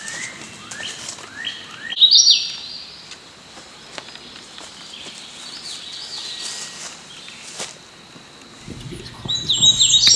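Birds chirping outdoors: runs of short, quickly rising chirps, loudest about two seconds in, with another run near the end. A low steady hum comes in near the end.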